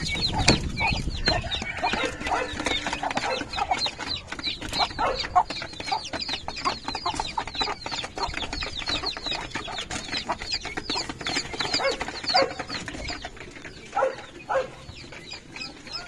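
Poultry chicks peeping, many short high cheeps several a second, with a few lower calls in the later part.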